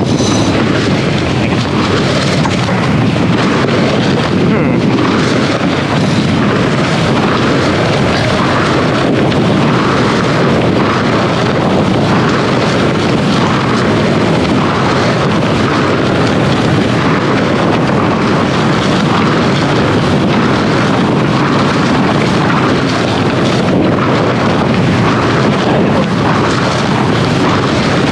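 Steady wind buffeting the camera microphone on a sailboat under way, mixed with the rush of the sea along the hull.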